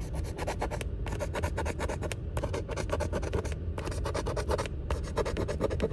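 A coin scratching the coating off a scratch-off lottery ticket in quick back-and-forth strokes, in five short runs with brief pauses between them.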